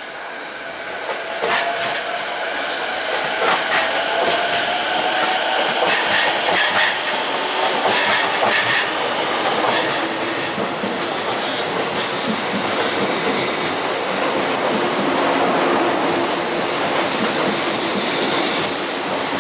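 JR East 185 series electric train running past at speed, its wheels clicking over rail joints. A whine rises slowly over the first few seconds.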